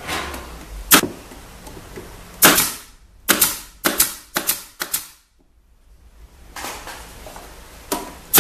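Pneumatic pin nailer firing pins into the MDF panels of a speaker box: a string of sharp shots, several of them less than a second apart in the middle, then a short pause and another shot near the end.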